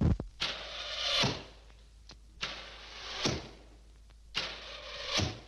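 Cartoon sound effect of fast arrows whooshing past and thudding home: a sharp hit at the start, then three whooshes about two seconds apart, each swelling and ending in a sharp thunk.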